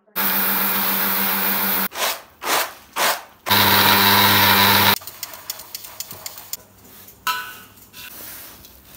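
Electric mixer grinder (mixie) with a stainless-steel jar dry-grinding a white powder, its lid held down by hand. It runs steadily for about two seconds, gives three short pulses, and runs again for about a second and a half. Then comes a quieter stretch of soft rattling as a hand stirs flour through peanuts and split gram in a steel bowl.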